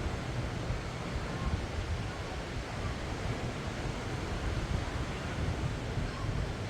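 Ocean surf washing onto the beach, a steady wash of breaking waves with wind buffeting the microphone in a low rumble.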